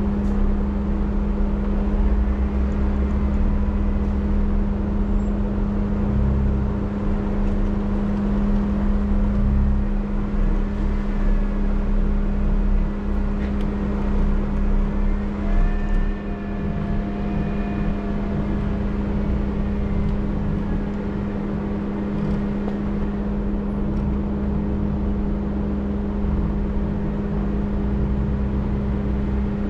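Off-road vehicle's engine and drivetrain running steadily at low trail speed, with a constant hum and an uneven low rumble. A faint whine wavers up and down about halfway through.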